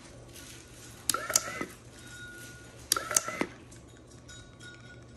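Wooden useless box run through two cycles about two seconds apart: each time the toggle switch clicks and its small motor whirs briefly as the arm comes out to flip the switch back, ending in more clicks.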